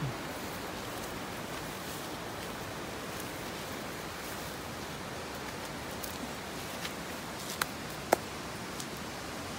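Steady rush of flowing water, with light rustling along a brushy path. A few sharp clicks come in the second half, the loudest about a second and a half before the end.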